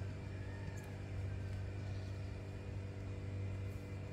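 Steady low machine hum with a stack of faint steady tones above it, unchanging throughout.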